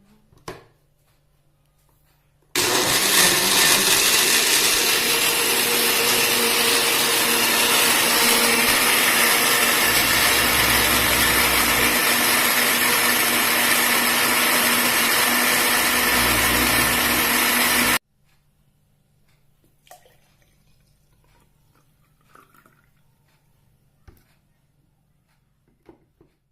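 Electric blender running for about fifteen seconds, starting abruptly and cutting off sharply, followed by a few faint knocks.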